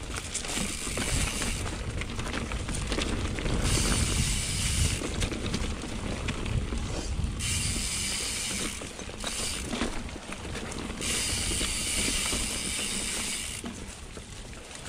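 Mountain bike rear freehub buzzing in four spells of one to two seconds as the rider stops pedalling and coasts, with silent pedalling stretches between. A steady low rumble of tyres on the dirt trail runs under it.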